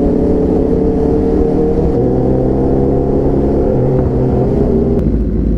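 Motorcycle engine running steadily while riding, its note rising slightly at first. About five seconds in the engine note drops away abruptly, leaving a low rumble.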